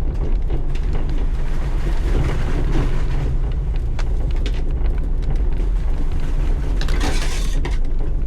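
Side-by-side off-road vehicle running along a rough trail: a steady low engine and drivetrain rumble, with scattered knocks from the terrain and a short rushing noise about seven seconds in.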